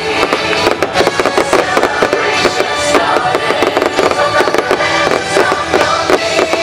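Fireworks crackling and popping in quick, dense succession over loud show music.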